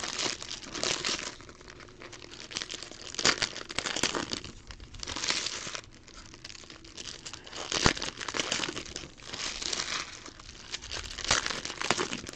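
Foil trading-card pack wrappers being torn open and crumpled in the hands: irregular crinkling and crackling, with a few sharper, louder tears.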